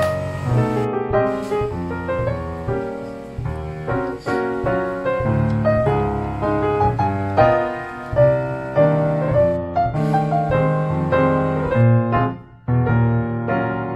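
Background piano music, a melody of distinct notes, briefly dropping out about twelve and a half seconds in.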